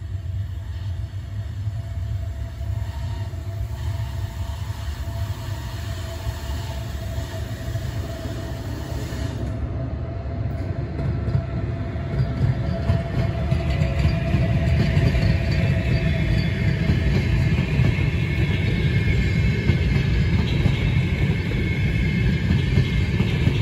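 Electric-locomotive-hauled passenger train of double-deck carriages approaching and rolling past, its rumble growing steadily louder. A steady mid-pitched tone sounds through the first half. As the carriages pass, wheel-on-rail noise adds a hiss with faint high squeal.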